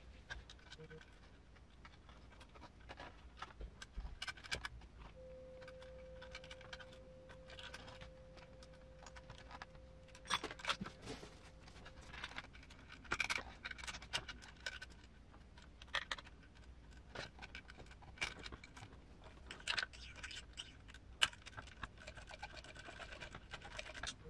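Small metal parts and a hand tool clicking, clinking and scraping as the leaf spring pack on a scale RC truck's front suspension is taken apart to remove the middle spring. A faint steady hum runs from about five to twelve seconds in.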